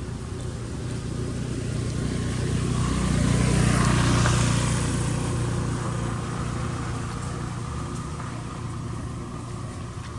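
A motor vehicle passing by: its engine hum grows louder, peaks about four seconds in, then slowly fades.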